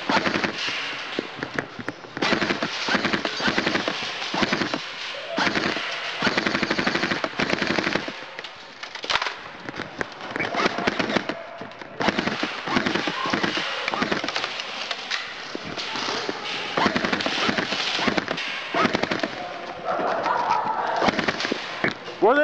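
Airsoft guns firing in rapid bursts, shot after shot in quick uneven strings, throughout.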